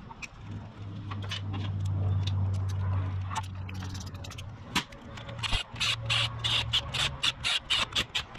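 Cordless drill-driver running the clutch pressure-plate spring bolts in: a low motor hum for about four seconds, then a run of short, sharp bursts, about four a second, in the last three seconds.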